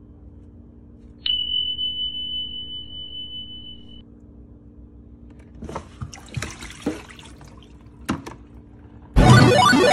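A single clear ringing tone starts sharply about a second in and fades away over the next three seconds. Then water is poured out of a plastic container into the stainless-steel sink with a few splashes, followed by a knock, and loud music starts near the end.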